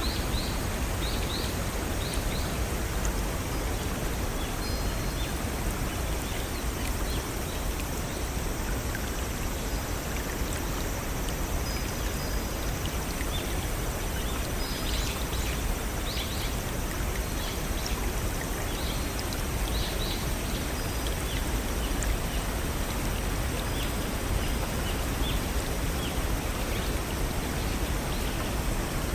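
Steady rush of a small stream and waterfall, with scattered short bird chirps over it.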